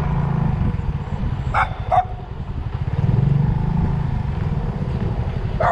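Slow-moving vehicle engine with a low, steady hum, and a dog barking twice, close together, about a second and a half in.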